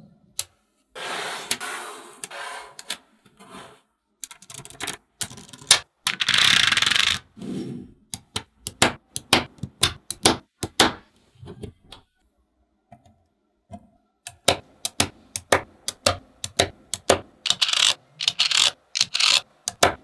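Small magnetic balls clicking and snapping against each other as they are set in place by hand, in quick irregular clicks. Three times the clicks run together into a longer rattle of many balls clacking at once.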